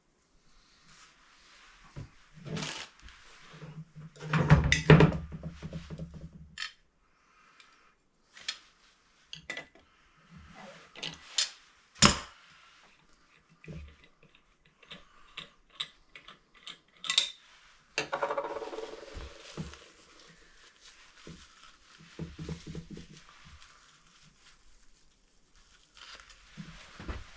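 Hand work with tools and hard parts in a small room: irregular clicks, knocks and clattering of hard objects, with a sharp knock about twelve seconds in and a stretch of scraping near two-thirds of the way through.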